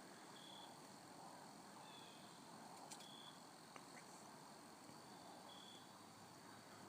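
Near silence: faint outdoor ambience with a few short high chirps spaced a second or more apart and two small clicks near the middle.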